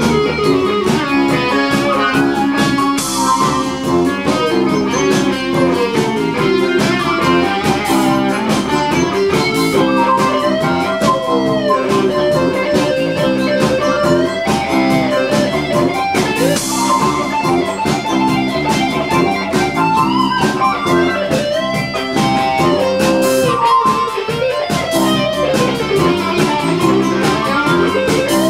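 Live band music led by an electric guitar playing a melody with long sliding pitch bends, over sustained chords and a steady rhythmic backing.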